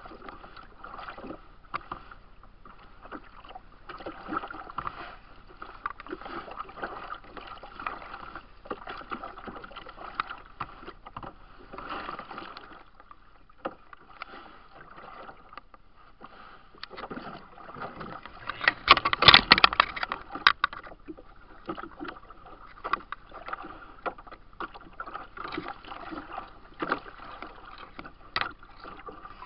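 Choppy lake water lapping and slapping against a plastic kayak hull in irregular small knocks and splashes. About two-thirds of the way through, a louder rush lasts about two seconds.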